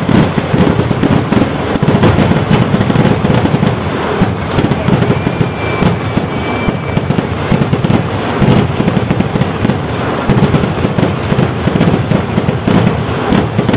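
Kerala festival fireworks (vedikettu) in a dense, unbroken barrage: explosions go off too fast to count, merging into a deep, continuous rattling rumble.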